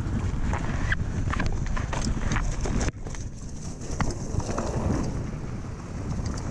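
Diamondback mountain bike rolling fast down a dirt trail over leaf litter: tyre crunch and a rapid clatter of rattling clicks from the bike, under heavy wind rumble on the microphone. The noise drops out abruptly for a moment just before three seconds in, then resumes.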